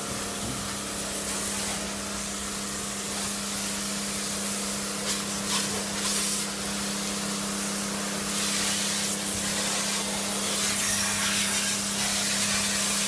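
High-pressure cold-water gun spraying a steady hissing jet, with the washer's 48-volt pump running underneath as a steady hum.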